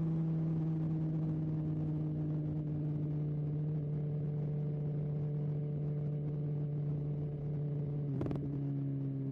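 Motorcycle engine running at steady, slowly easing revs while riding, one even droning note. About eight seconds in it breaks off briefly with a sharp click and comes back slightly lower, as on an upshift.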